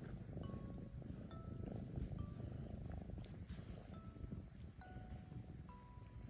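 Domestic cat purring steadily, close to the microphone.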